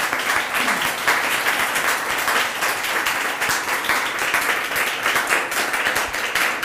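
An audience applauding steadily, many pairs of hands clapping at once.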